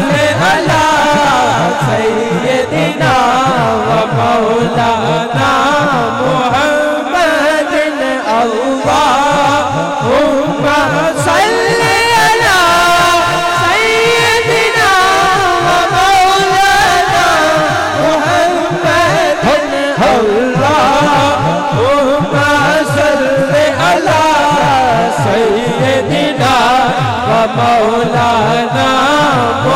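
A man singing a naat (Islamic devotional song) into a microphone through a PA, in long melismatic phrases with the voice gliding and wavering between held notes. A steady low rhythmic pulse runs underneath.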